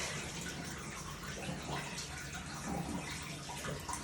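Steady rush of water draining out of an old dishwasher still full of water, with a faint low hum underneath.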